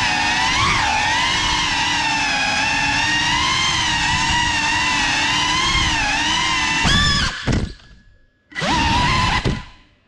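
FPV drone's electric motors whining, the pitch wavering up and down with the throttle. Near the end the whine cuts out twice, briefly, as the throttle is chopped, then returns.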